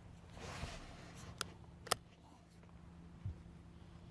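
Light metallic handling of a single-shot pistol as a buckshot shell is loaded: a soft rustle, then two sharp clicks about half a second apart and a low thump later.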